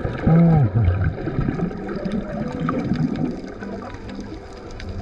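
Muffled water sloshing and bubbling picked up by a camera held just under the surface, with a short, pitched vocal sound through a snorkel that falls in pitch in the first second.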